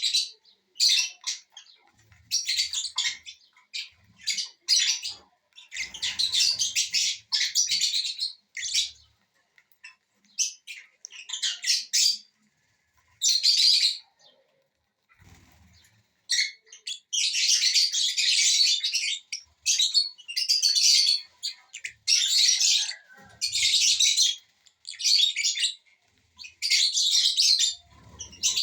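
Small pet parrots chattering in shrill, high-pitched bursts of chirps, each a fraction of a second to about two seconds long, with short pauses between them.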